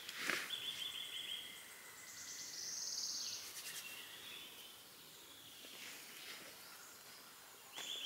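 Songbirds singing in woodland: short, fast trills of about a second each, one just after the start, a higher-pitched one about three seconds in, and another near the end. Scattered soft rustles and clicks come between them, the loudest just after the start.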